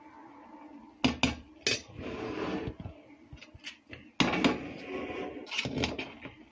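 A spoon scraping through rice and knocking against the side of a large aluminium pot as layered biryani rice is turned over. There are several sharp knocks, the loudest about four seconds in, with two spells of scraping.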